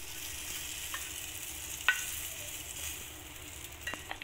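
Fried crushed garlic and hot oil sizzling as they are scraped from a small pan into mutton curry, then a wooden spatula stirring the curry. A few light knocks of spatula on pan, the sharpest about two seconds in.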